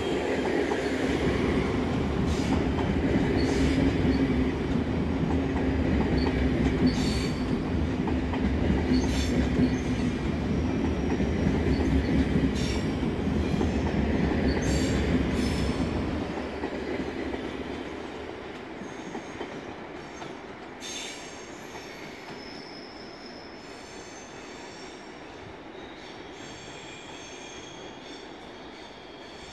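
SBB double-deck passenger train hauled by an electric locomotive pulling out of the station: a low rolling rumble with wheels clicking over rail joints and points. The rumble fades about halfway through as the last coaches pass, leaving faint high-pitched wheel squeal from the departing train.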